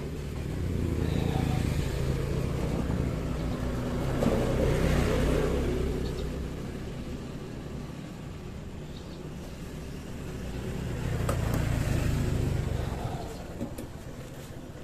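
Road vehicles passing by twice: a low rumble that swells up and fades away, the second pass in the latter part.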